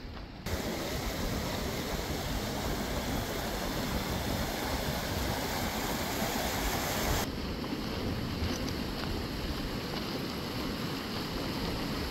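Wind buffeting the microphone: a steady rushing hiss with an uneven low rumble. It starts suddenly about half a second in and turns duller about seven seconds in.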